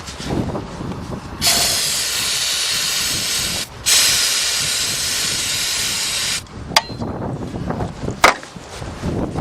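Aerosol can of starting fluid sprayed in two long hissing bursts, about two seconds each with a brief break between, into a no-start engine's intake. Two sharp clicks follow near the end.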